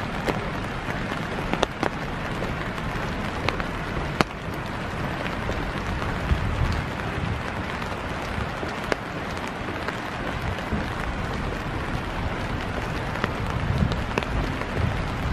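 Steady rain falling, an even hiss with scattered sharp drops ticking close by.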